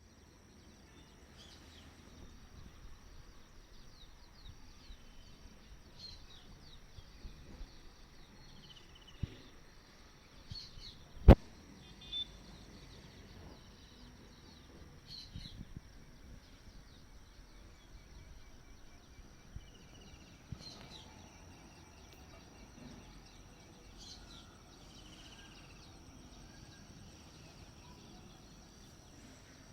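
Scattered bird chirps over faint steady background noise and a thin high steady tone. A single sharp click about eleven seconds in is the loudest sound, with a smaller knock a couple of seconds before it.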